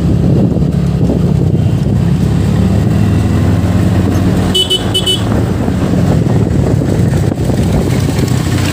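TVS NTorq 125 scooter's single-cylinder engine running steadily at riding speed with road noise, in traffic. About halfway through, a vehicle horn gives two short beeps.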